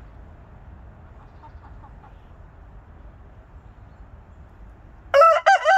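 Hens clucking faintly, then about five seconds in a rooster starts to crow loudly: a few short broken notes, then the long held note of the cock-a-doodle-doo.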